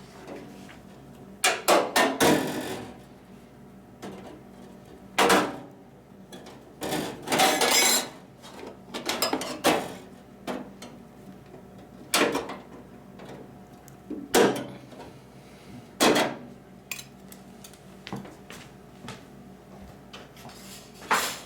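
Irregular clunks, knocks and scrapes of a microwave's blower assembly and sheet-metal housing being handled, as the blower is turned round to exhaust out the back. The loudest knocks come about two, five, eight, twelve, fourteen and sixteen seconds in, with a sharp one near the end.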